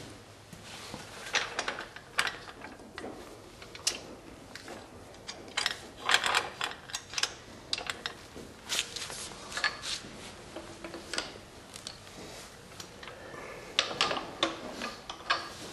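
Steel brackets and clamps on the lift arms of a riding-mower lift being adjusted by hand: irregular metallic clicks, clanks and rattles, in several clusters.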